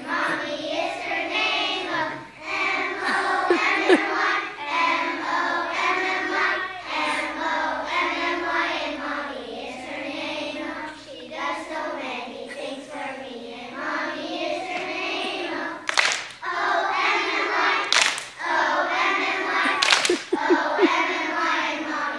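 A group of young children singing a song together in unison, with held notes. Near the end, three sharp taps about two seconds apart cut through the singing.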